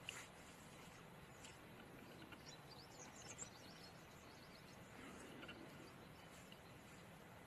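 Near silence: faint outdoor ambience, with a few faint bird chirps about three seconds in.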